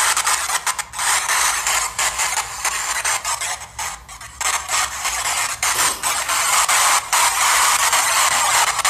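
Movement noise from a handheld recording being carried while walking: loud, harsh rustling and scraping that keeps rising and falling, with a brief lull about four seconds in.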